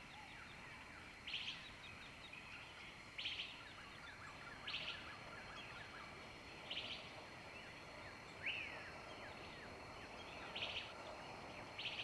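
Birds in tropical forest chirping softly, with a short high call coming back every couple of seconds, over a faint steady background.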